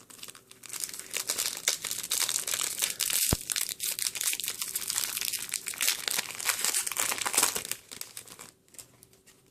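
Crinkling and tearing of a Yu-Gi-Oh! booster pack's foil wrapper as it is ripped open and handled, with one sharp knock about three seconds in.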